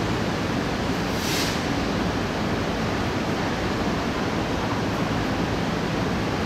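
An MTR R-Train electric multiple unit rolling slowly into the platform, giving a steady noisy rumble with a low hum and a brief hiss about a second in.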